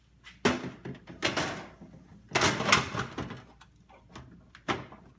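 Plastic ice bin being slid back into a Samsung refrigerator's ice maker compartment: a series of plastic scrapes and knocks, loudest about halfway through, with a short sharp knock near the end.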